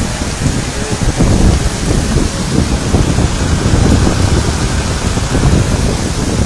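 Heavy rain pouring down onto a flooded street, with a loud, uneven low rumble underneath that starts right at the beginning.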